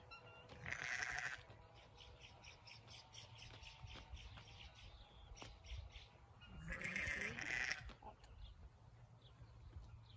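Young lamb bleating twice while held for its shot, one call about a second in and another around seven seconds in, each lasting about a second.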